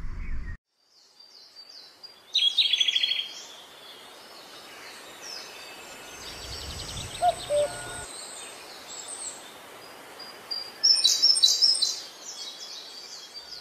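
Songbirds singing and chirping, with loud trills about two seconds in and again near the end, over a faint outdoor background.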